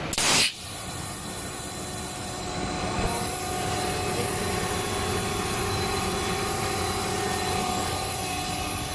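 PET preform injection molding machine running: steady mechanical noise with a held whine, and a higher tone joining about three seconds in. A short, loud hiss lasting a fraction of a second comes right at the start.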